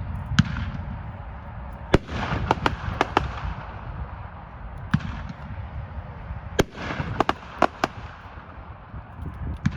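Consumer firework called Flash Bang going off: about a dozen sharp bangs at uneven intervals, several in quick succession, over a steady crackling hiss.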